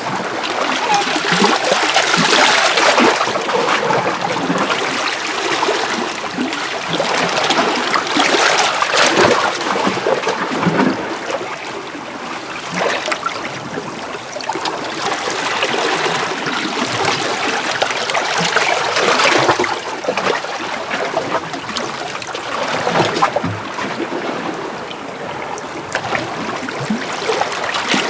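Small sea waves washing in and out over shore rocks, the water noise swelling and easing every few seconds.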